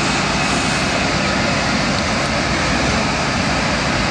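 A steady rushing noise, even and unbroken throughout.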